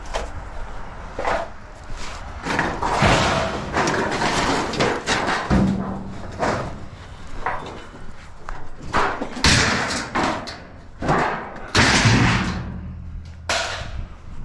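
Scrap metal being handled and tossed onto a pile: an irregular run of loud clanks, bangs and thuds as metal pieces are dropped and knock together.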